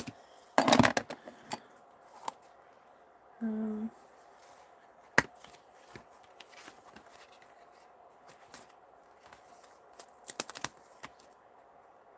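Clear plastic cling-stamp case and its paper insert being handled: a loud rustle of plastic and paper just under a second in, a sharp click at about five seconds and a quick cluster of clicks a little after ten seconds. A short hummed voice sounds at about three and a half seconds.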